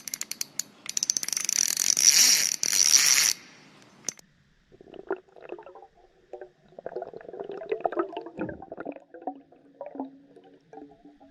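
A pike releasing air from its swim bladder underwater. A loud fizzing rush of bubbles lasts about three seconds, then after a short pause comes a long run of low, irregular gurgling bubble pops.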